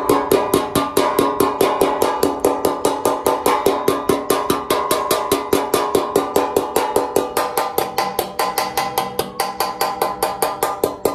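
A hammer tapping a soldered sheet-metal gutter corner in rapid, even blows, about six a second, the metal ringing with each strike: the corner being knocked into shape.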